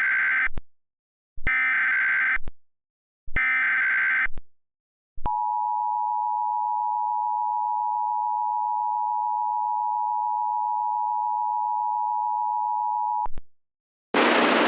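Emergency Alert System SAME header: three one-second bursts of warbling digital data tones, encoding a tornado warning. After them comes the EAS attention signal, a steady dual tone of 853 and 960 Hz held for about eight seconds, which cuts off sharply. A hiss of static starts just before the end.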